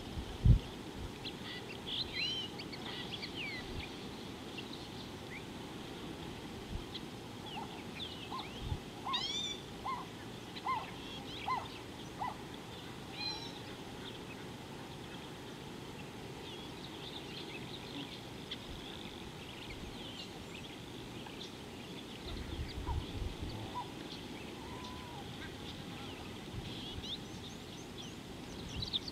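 Several wild birds calling and chirping: many short high chirps and rising whistles, and a run of lower repeated notes from about 8 to 12 seconds in. A low thump about half a second in, and low rumbles around three-quarters of the way through.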